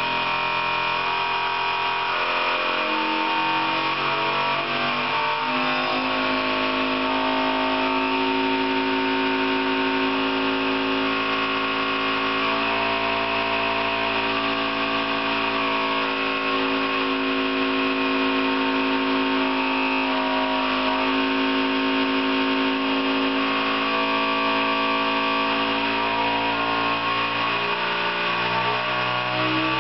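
Servo-hydraulic test machine with a hydraulic wedge grip, vibrating a clamped thin strip. It makes a steady, loud buzz of several tones at once, whose pitch shifts in small steps and climbs near the end, as the drive frequency is swept in search of the strip's resonance.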